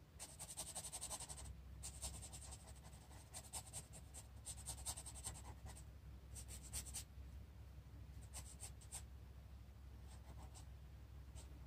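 Marker nib scratching across sketchbook paper in quick short strokes, coming in bursts of a second or so with short pauses between, faint over a low steady hum.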